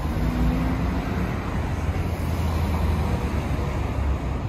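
Steady low rumble and hiss of a running vehicle or passing road traffic, with a low hum underneath, fading a little just after the end.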